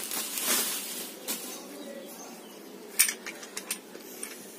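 Bubble wrap crinkling and rustling as a plastic handheld camera stabilizer handle is pulled out of it, loudest at the start and then dying down, followed by a few sharp plastic clicks about three seconds in as the handle is handled.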